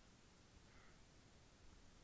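Near silence: a faint low rumble, with one brief faint sound a little under a second in.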